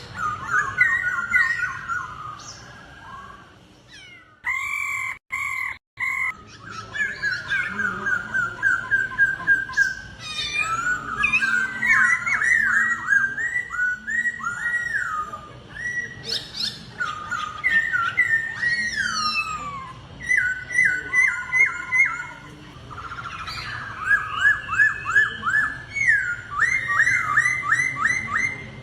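Laughingthrush (khướu) singing in rapid phrases of loud whistled notes, each note quickly repeated several times, with a brief break about five seconds in.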